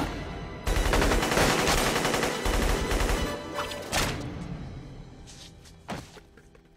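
Film soundtrack of rapid gunfire: a dense volley of shots over music for about two and a half seconds, fading out, with single sharp shots or impacts about four and six seconds in.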